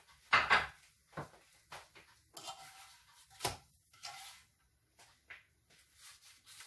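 Kitchen handling noises: scattered knocks and clatters of dishes, pans and utensils being moved on the counter and stove. The loudest comes just after the start, and another sharp knock about three and a half seconds in.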